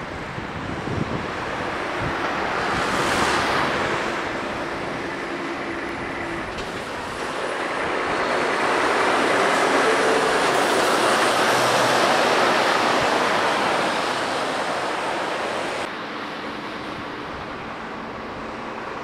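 Road traffic: articulated lorries running past, a dense rush of engine and tyre noise. It swells twice and is loudest through the middle, as a Mercedes-Benz lorry with a refrigerated trailer passes close. The level drops suddenly a few seconds before the end.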